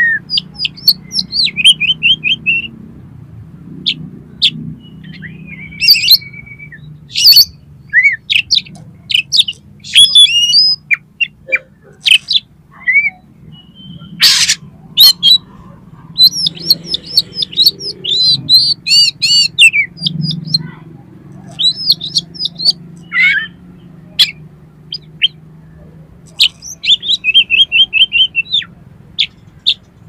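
Oriental magpie-robin (kacer) singing energetically: a varied string of loud whistles, sharp notes and several fast rattling trill phrases, over a faint low hum.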